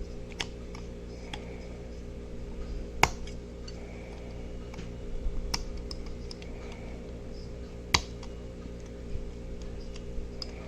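Small clicks and taps of a hand tool working on a die-cast toy car, with two sharper clicks about three and eight seconds in, over a steady low hum.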